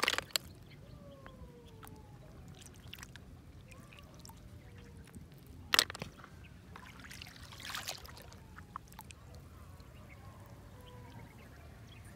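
Wet apple snails being dropped by hand into a plastic basin of snails: a few sharp clacks of shell on shell, the loudest about six seconds in, with water trickling from the hand.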